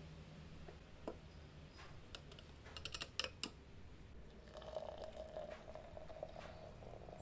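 Ground coffee being tipped into a glass French press with a few light clicks and taps, then, about two-thirds of the way in, a thin steady stream of hot water poured onto the grounds.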